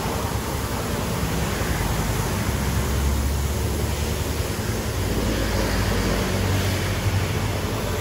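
Car engine idling: a steady low rumble with an even hiss over it.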